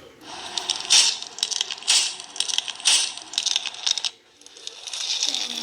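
Slime being squeezed and pressed, crackling and clicking in three strong squeezes about a second apart, then a short lull.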